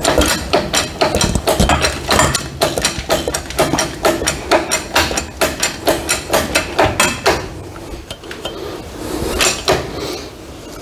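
Rapid metallic clicking and tapping, about four sharp clicks a second for several seconds, then a pause and a few more near the end. It comes from fitting a circlip with circlip pliers onto a transmission clutch-pack shaft held under a homemade press.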